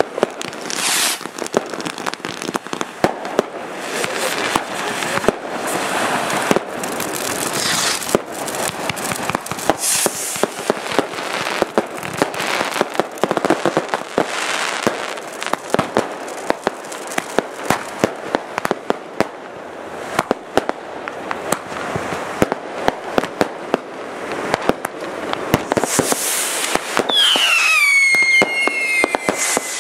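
Fireworks going off without pause: a dense run of bangs and crackling from ground fountains and aerial bursts. Near the end a whistling firework sounds, falling in pitch and then holding steady.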